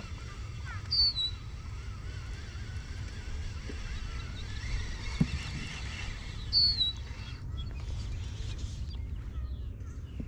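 Wild birds calling: two short, sharp high calls, about a second in and again past the middle, over a thin wavering birdsong, with a steady low rumble of wind on the microphone underneath.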